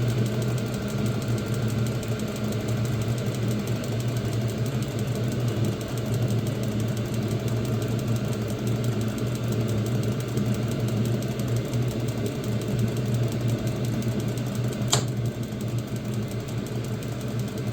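Diesel air heater running with a steady hum from its combustion fan and burner. A single sharp click sounds about fifteen seconds in.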